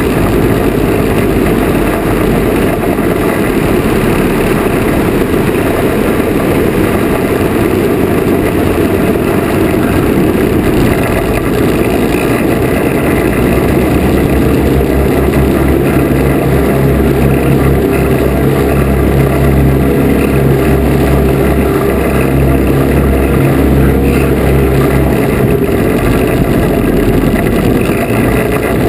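The Lazair ultralight's small wing-mounted engines run steadily, mixed with heavy wind noise on the wing camera. A deeper, steadier engine hum comes in about halfway through as the aircraft comes down to land on grass, then fades near the end.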